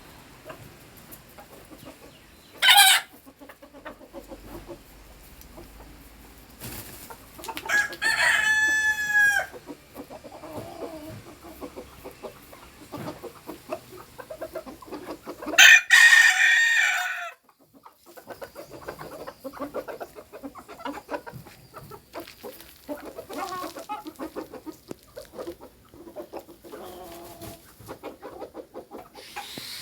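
Bantam chickens clucking softly and pecking at their food, with many small pecking clicks. A short loud call comes about three seconds in, and a rooster crows around eight seconds in and again around sixteen seconds in.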